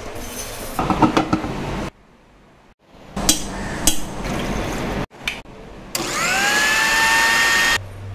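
Quick cuts of shake-making in a steel mixer-grinder jar. First, dry chopped nuts rattle as they are poured in. Then a spoon knocks against the jar a few times. Then the mixer grinder's electric motor spins up with a rising whine and runs steadily for under two seconds before cutting off.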